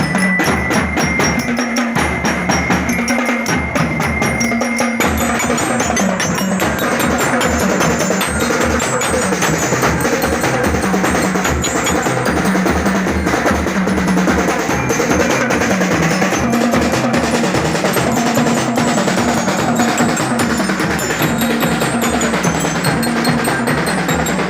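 Drums and bell-toned mallet percussion, like a glockenspiel, playing together in a steady, dense beat.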